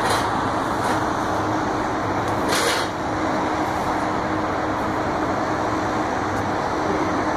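Steady roar of city traffic from busy highways far below a high-rise, a continuous wash with no single vehicles standing out. A brief hiss rises out of it about two and a half seconds in.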